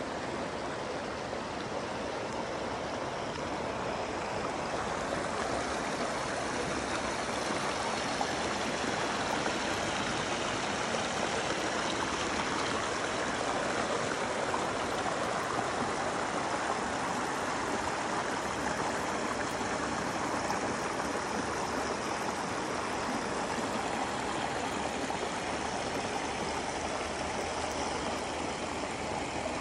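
The Kern River flowing over rocks in a shallow riffle at the bank: a steady rushing of water.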